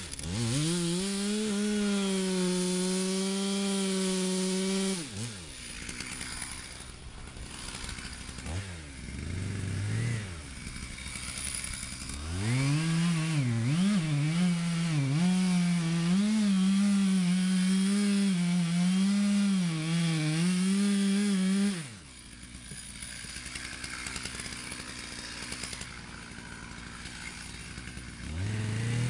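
Two-stroke chainsaw revving to full throttle and holding for about five seconds, then dropping to idle with a short blip of throttle. It then runs at full throttle for about nine seconds, its pitch wavering as it bogs under load cutting into a standing tree trunk. It falls back to idle, and revs up again at the very end.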